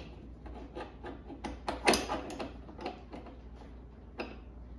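Schroth racing harness webbing being pulled through the slot of a carbon lightweight bucket seat: a run of short rubbing and scraping strokes, loudest about two seconds in, with a few sharp clicks.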